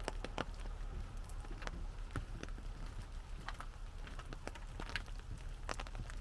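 Raindrops tapping irregularly on an umbrella, a few sharp taps a second over a steady hiss of rain.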